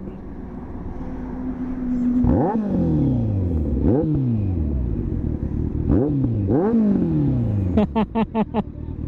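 Kawasaki Z900's inline-four engine idling, then revved in four sharp throttle blips, each pitch rising quickly and falling away. Near the end comes a rapid stutter of about six short bursts.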